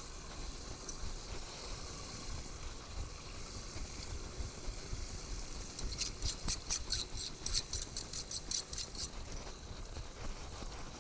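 Gloved hands scooping and squeezing wet leaves and debris off a metal street drain grate in shallow water, with a run of crackly rustles and splashes from about six to nine seconds in, over a steady low background noise.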